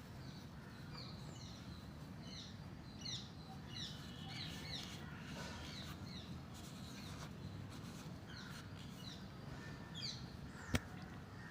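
Small birds chirping over and over, short high notes at irregular intervals, over a faint low background hum. A single sharp click near the end.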